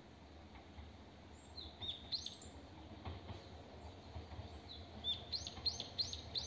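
Small birds chirping in the trees: a couple of short chirps about two seconds in, then a quick run of four or five rising-and-falling notes near the end, over a faint low rumble of background noise.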